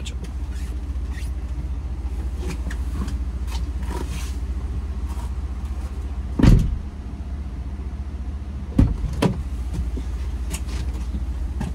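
Car engine idling with a steady low rumble, heard from inside the car. There is a loud thump about six and a half seconds in and two sharp knocks near nine seconds.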